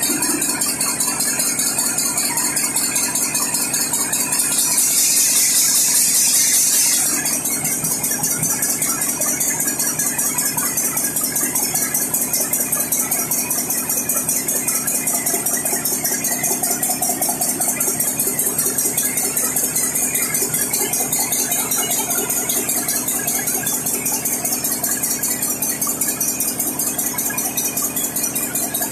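Large compressed-air-started multi-cylinder diesel engine running with a fast, even firing beat. About five seconds in, a loud hiss lasts roughly two seconds.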